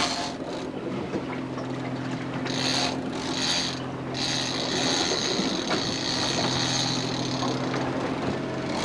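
A fishing reel's ratchet clicking in short bursts and then steadily for about three and a half seconds during work on a tangled line with a swordfish on it, over the steady hum of the boat's engine.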